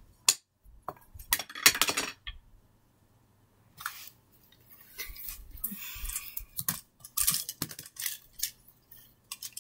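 Handling noise as plush toys are picked up and moved about on a rug: scattered clicks, taps and rustles, loudest in a cluster about one and a half to two seconds in, then a short gap before quieter clicks and rustles resume.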